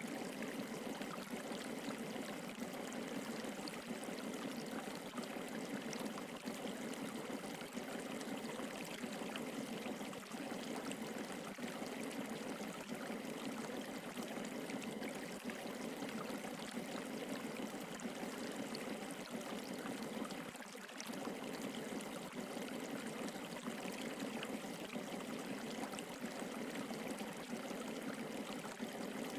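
Steady rushing of flowing water, like a stream, running unbroken except for a brief dip about two-thirds of the way through.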